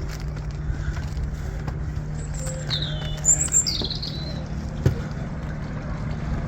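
Small outboard motor on a plastic boat running at a steady low drone, with a few short bird chirps over it midway and a single click near the end.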